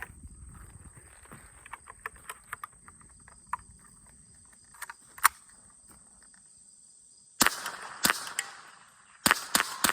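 Winchester Model 77 .22 Long Rifle semi-automatic rifle firing: a single sharp shot about seven and a half seconds in, then a quick string of shots a few a second near the end. Faint handling clicks come before the shots.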